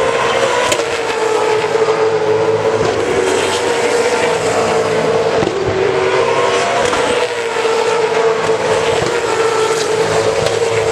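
V8 Supercars' 5-litre V8 engines racing past at high revs, several cars' engine notes overlapping, their pitch rising and dipping as they drive through the corner.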